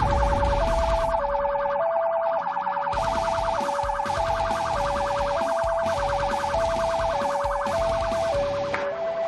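Police car sirens: a two-tone hi-lo siren stepping between two notes about every half second, over a faster warbling siren tone.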